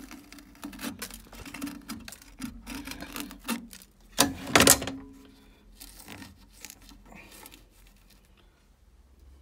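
Hands handling a rubber boiler hose and a screwdriver among the boiler's pipework: short clicks and rubbing, with one louder knock and scrape about four and a half seconds in.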